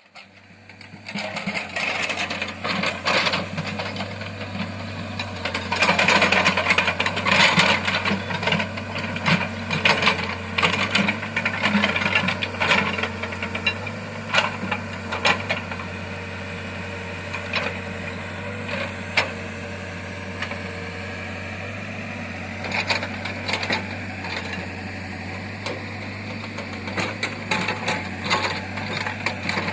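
Backhoe loader's diesel engine running steadily under load, with irregular clanks, knocks and rattles from the bucket and linkage working the ground. The clatter is busiest around six to eight seconds in.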